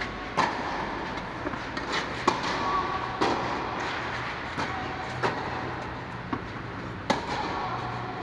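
Tennis rally: tennis balls struck by rackets and bouncing on the clay court, giving a string of sharp pops a second or two apart that ring briefly in the large domed hall. A steady low hum lies under them.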